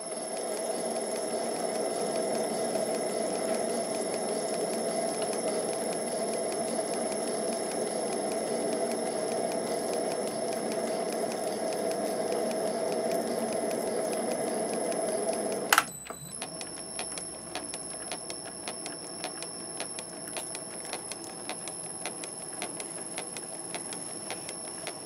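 MN-80 lathe running under a thread-cutting job on a steel tube: a loud, steady machine run with a constant high whine. About two-thirds of the way through there is a sharp click and the run drops to a quieter level with a rapid, even ticking.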